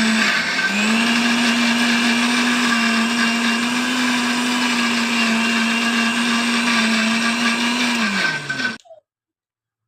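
Electric blender grinding a wet mix of onion, garlic, dried chillies and dried fish with a little water into a paste. Its motor runs steadily with a brief dip in speed about half a second in, then winds down with a falling pitch and stops about nine seconds in.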